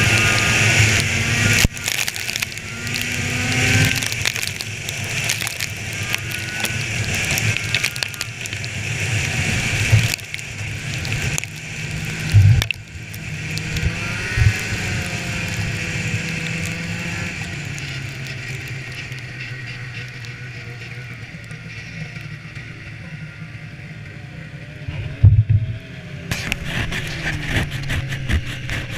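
Polaris snowmobile running along a snow trail, a steady engine note with rushing noise above it, with a few sharp thumps along the way. The engine eases off and gets quieter through the second half, then picks up again near the end.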